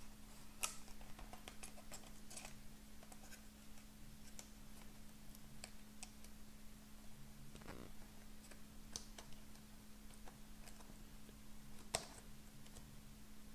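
Faint scattered clicks and taps of small parts being handled as a MacBook Air's I/O board and its cable connectors are fitted by hand, with a sharper click about half a second in and another near the end, over a steady low hum.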